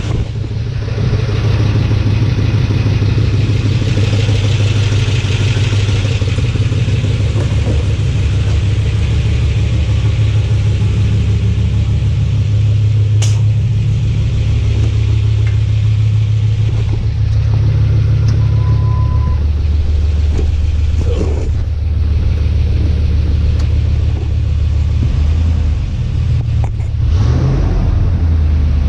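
Freshly rebuilt Ford 5.4-litre three-valve V8 idling steadily on its first run, its idle settling slightly lower about two-thirds of the way through. It has an exhaust leak, which the owner hears as a tick.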